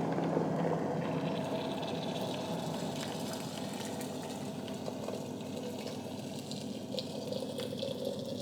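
Water running steadily into a vessel, a continuous splashing rush.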